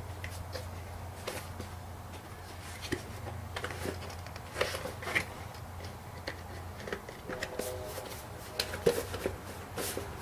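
Scattered light knocks and clinks of tools and metal being handled, more frequent in the second half, over a steady low hum.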